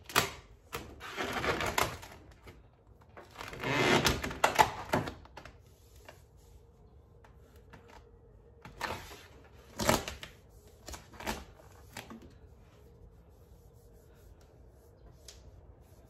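3M satin grey vinyl wrap film crackling and rustling as gloved hands press and work it around a car door handle: two longer bursts of crinkling in the first five seconds, then a handful of sharp crackles and clicks a few seconds later.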